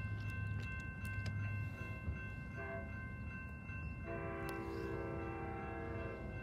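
Grade-crossing warning bell ringing steadily as a train approaches. A short horn note sounds about two and a half seconds in, then the train's air horn blows one long chord from about four seconds in.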